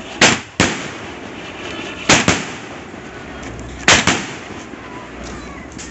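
150-shot consumer firework cake (Takeshi Castle) firing: sharp bangs in close pairs, three pairs spaced a little under two seconds apart, with a steady hiss between the shots.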